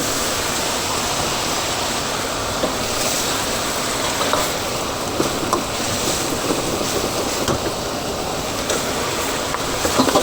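Chicken frying in a wok, a steady sizzle without breaks.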